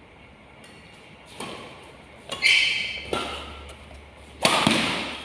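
Badminton rally: rackets striking the shuttlecock several times, two of the hits loud, sharp cracks about two seconds apart, each echoing in the hall.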